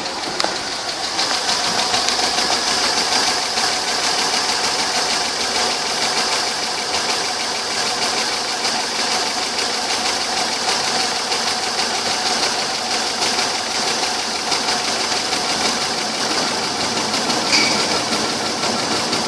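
2002 Chevrolet Avalanche's 5.3-litre V8 idling steadily, with a brief high chirp near the end.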